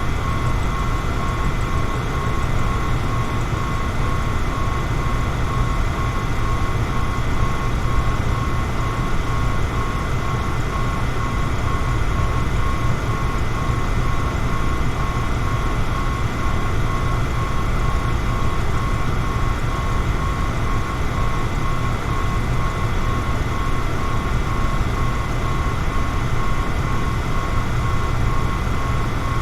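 Electric fan running steadily: a continuous low rush of moving air with a thin, steady motor whine above it.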